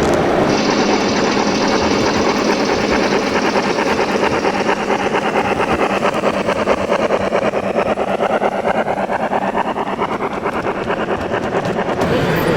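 Radio-controlled model construction machines running: a steady mechanical whirr with fast pulsing. A higher whine comes in about half a second in and fades out around the middle, and the pitch slides slowly down and back up as the motors change speed.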